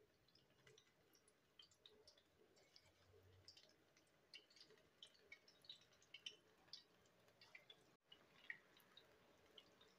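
Faint crackling and popping of battered vegetable pakoras deep-frying in hot oil: many small irregular pops over a soft sizzle, briefly cutting out about eight seconds in.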